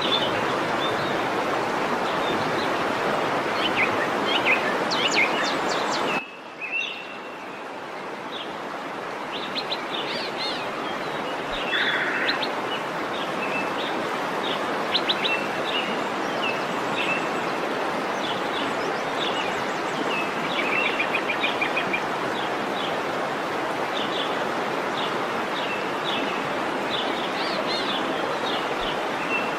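Waterfall rushing in a steady hiss, with small birds chirping and calling over it. About six seconds in the water sound drops abruptly, then builds back up over the next few seconds.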